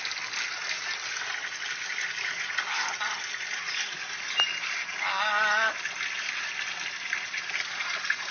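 A parrot gives one short warbling call about five seconds in, its pitch wobbling quickly up and down like an operatic vibrato, over a steady background hiss.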